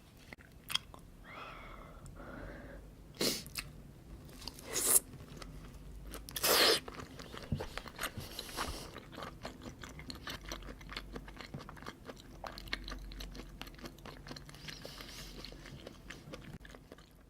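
Close-miked chewing of raw salmon and salmon rolls: a long run of soft, wet mouth clicks and smacks, with a few louder sharp sounds in the first seven seconds.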